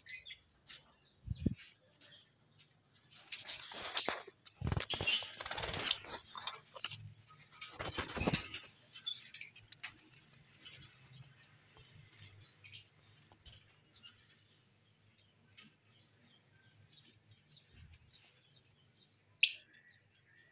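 Caged lovebirds with faint chirps and ticks, broken by several seconds of rustling and scraping a few seconds in, and one sharp high call near the end.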